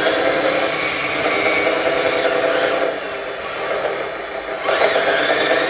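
Hydraulic pump of a 1/14-scale DXR2 RC dozer whining steadily as the blade is worked. It eases off about three seconds in, then winds back up with a rising pitch near the end.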